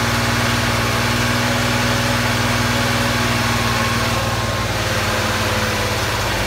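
Freshly rebuilt air-cooled 3.0-litre flat-six of a 1980 Porsche 911SC running on its first start, held at a steady fast idle by hand at the throttle, the revs easing slightly in the second half.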